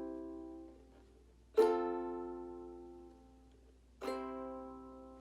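Ukulele strummed with single down strums, changing between C and F chords: two fresh strums about 1.6 and 4 seconds in, each chord ringing and slowly fading before the next.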